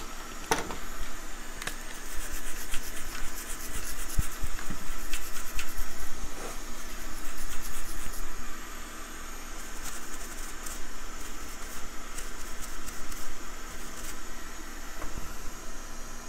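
Small stiff-bristled brush scrubbing flux residue off a circuit board, a scratchy rustle in two bouts, the second shorter, over a steady background hiss.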